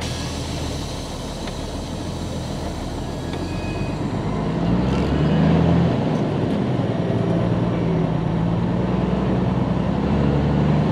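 Diesel engine of a 2000 Freightliner FLD 112 semi tractor heard from inside the cab, driving at low speed; its drone grows louder about four seconds in as it pulls ahead, then holds steady.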